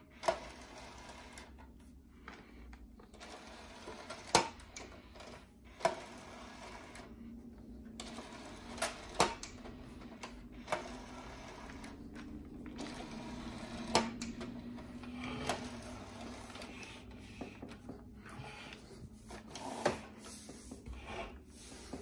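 Panasonic SA-PM29 five-disc CD changer mechanism working: a faint low motor whir, strongest around the middle, with a string of irregular sharp mechanical clicks as the disc tray and carousel move between discs.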